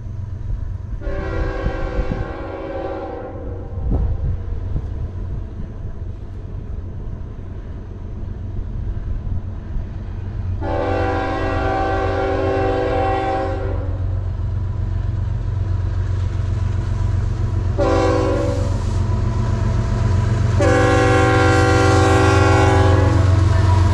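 Diesel freight locomotive, a CN ES44AC, sounding its multi-tone air horn in the grade-crossing pattern: two long blasts, a short one, then a long one. The engine's low rumble grows louder as the train approaches.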